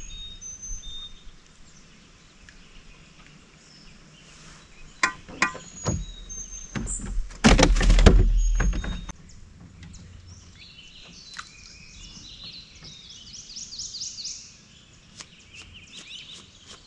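Birds chirping in the swamp, with a fast run of high twittering notes in the later part. Midway comes a loud bumping rustle lasting about a second and a half, the loudest sound here, after a few sharp clicks.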